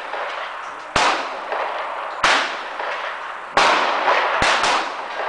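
9mm pistol shots fired at a steady pace, about one every second and a quarter, ending in two quick shots. Each shot trails off in a long echo.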